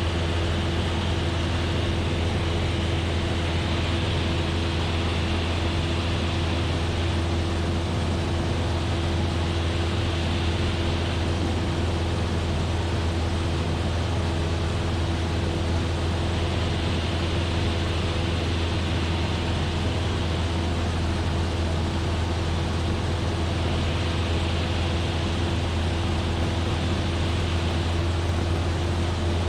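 Cessna 172F's Continental O-300 six-cylinder engine and propeller droning steadily in cruise, with a low hum and a rushing hiss of air that swells and fades every few seconds.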